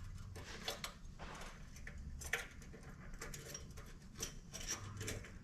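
Faint, irregular light clicks and taps, a dozen or so, of small metal parts being handled and fitted: a replacement choke thermostat and its linkage being worked into place on a Corvair engine.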